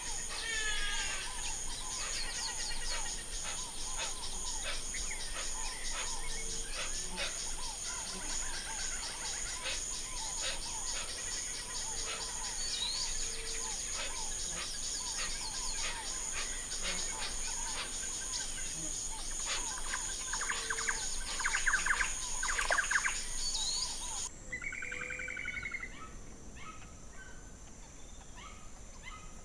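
Several birds chirping and calling over a steady, high, pulsing insect chorus. About five seconds before the end the insect chorus stops abruptly and the sound grows quieter, with a few more bird calls.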